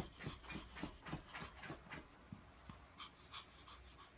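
Faint scratching of a small dog's paws digging at a fabric couch cushion, quick strokes at about three to four a second that thin out after about two and a half seconds.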